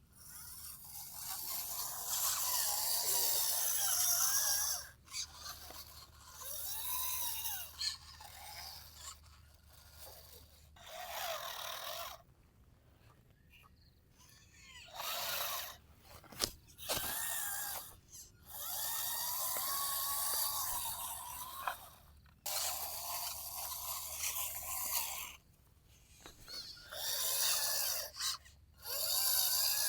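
Small electric gear motors of a radio-controlled toy earthmover whining in repeated bursts of a few seconds, the pitch rising and falling as the motors speed up and slow down, with short quiet gaps between the bursts while the model digs and loads soil.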